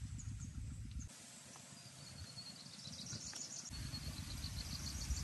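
Outdoor rural ambience with a low rumble, likely wind on the microphone. The rumble drops away about a second in and returns near the end. Rapid, high chirping starts about two seconds in.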